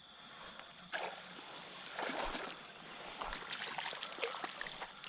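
Water splashing in irregular bursts, about a second in, two seconds in and again in a longer run near the end: a hooked bass thrashing at the surface as it is brought in on a topwater lure.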